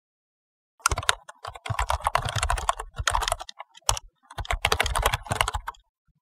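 Computer keyboard typing sound effect: rapid runs of keystroke clicks in several bursts with short pauses, starting about a second in.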